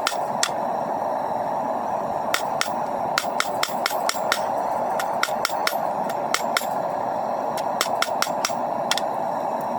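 Hand hammer striking hot coil-spring steel on an anvil while forging a knife blade: two blows, a pause, then a long run of quick blows at about three a second, a short pause and a few more. A steady rushing noise runs underneath.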